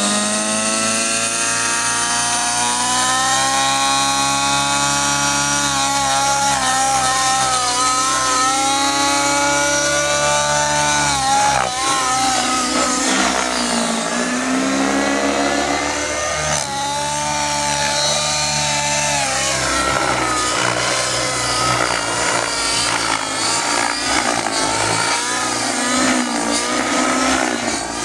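Align T-Rex 700 Nitro RC helicopter's two-stroke glow engine running at high revs. Its pitch rises over the first few seconds as the helicopter lifts off, then swoops down and back up again and again as the load changes through its flying manoeuvres.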